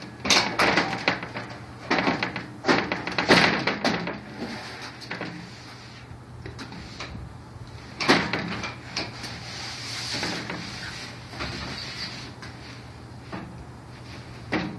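Knocks, clunks and scraping as a glass panel is worked into a metal balcony railing frame, densest in the first four seconds with another sharp knock about eight seconds in.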